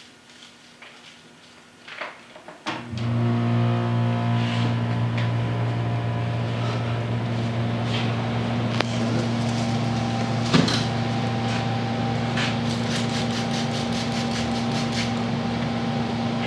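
A steady electric machine hum starts suddenly about three seconds in and runs on evenly. Before it and faintly over it, dry rustling and crackling of broomcorn stalks being sorted by hand.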